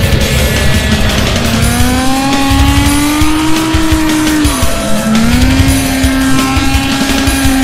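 Drift car's engine revving with tyre squeal, its pitch climbing, dropping sharply about four and a half seconds in, then climbing again. Background music with a steady beat plays underneath.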